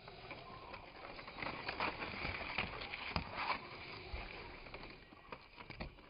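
Footsteps and rustling through grass: a run of irregular soft steps and knocks, busiest in the middle and thinning out near the end.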